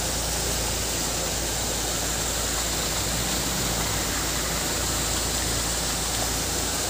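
Floodwater rushing across a road surface and churning over rocks as a steady rush of water, with a low steady hum underneath.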